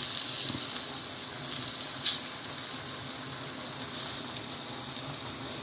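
Plantain slices frying in butter in a pan, a steady sizzle. A single metal click about two seconds in, from the fork turning the slices against the pan.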